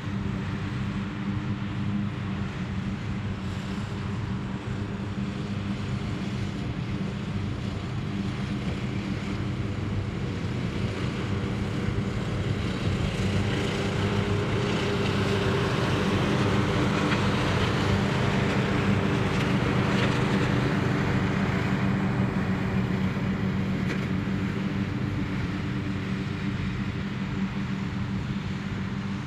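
Riding lawn mower engines running steadily under load with the cutting blades spinning. The sound swells as one mower passes close by in the middle, then eases off.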